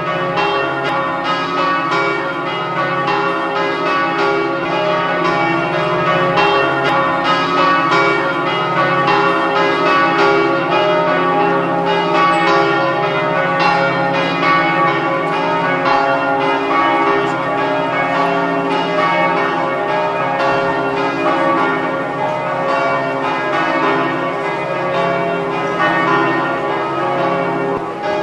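Church bells ringing in a continuous peal, many strikes overlapping with long ringing tones.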